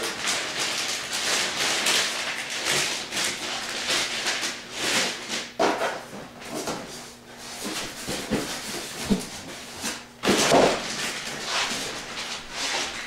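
Plastic bag crinkling and rustling as it is handled around a large computer case, with a few small knocks and a louder burst of rustle about ten seconds in.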